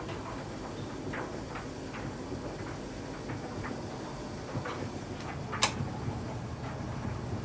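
Clothes dryer tumbling a load of towels on a high-heat timed dry: a steady low hum of the turning drum with irregular light clicks, and one sharper click about five and a half seconds in.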